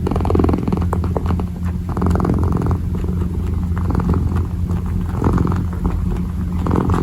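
Kitten purring close to the microphone: a steady low rumble that swells in rhythm with its breathing every second or two.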